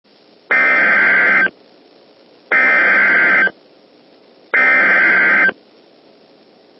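Emergency Alert System SAME header: three one-second blasts of screeching digital data tones, about a second apart, over faint radio hiss. They mark the start of a new alert broadcast.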